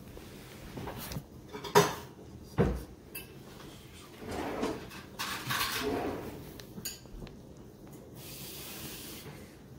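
Kitchenware being handled on a counter: two sharp knocks about two seconds in, then softer clattering and scraping, and a brief hiss near the end.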